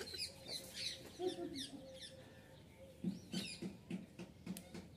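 Short high chirps repeating now and then, with a few light clicks near the end as a selfie-stick tripod is handled.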